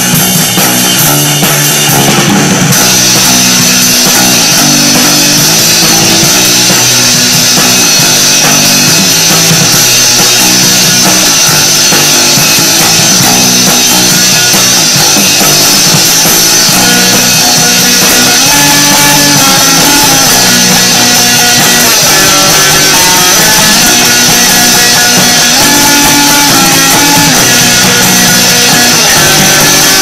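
Loud punk rock band recording: electric guitars and a full drum kit playing without a break, the sound filling out a couple of seconds in.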